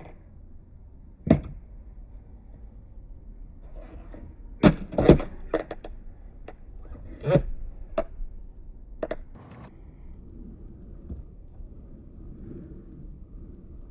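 Skateboard knocking and clacking on concrete: a scattered series of sharp hits, one a little over a second in and a cluster of the loudest around five seconds in, with a few more up to about nine seconds, over a low steady background rumble.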